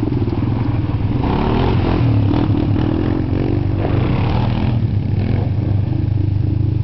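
Sport quad ATV engines running and revving, the pitch rising and falling in the middle. About five seconds in, one engine settles into a steady, even idle.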